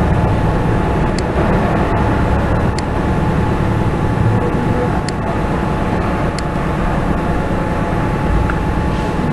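Steady low background noise with a faint steady hum, and four short sharp mouse clicks spread over the stretch.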